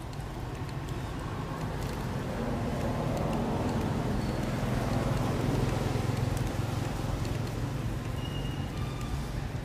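Low rushing outdoor background noise that swells to its loudest about halfway and eases off again, with a few faint short high chirps near the end.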